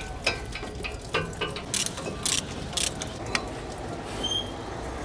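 Ratchet wrench clicking in short strokes as tight bolts are worked loose on a pickup's front hub, with sharp clicks roughly every half second.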